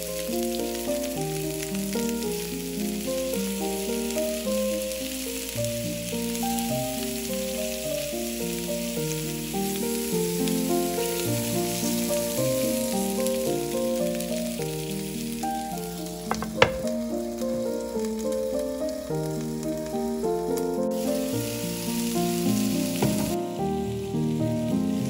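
Meatballs sizzling as they fry in oil in a non-stick frying pan, with a steady hiss that fades away near the end. A single sharp click comes about two-thirds of the way through, and background music with a stepping melody plays throughout.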